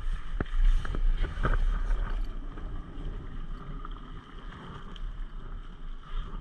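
Steady low rumble of wind buffeting the microphone, with a few sharp knocks in the first two seconds.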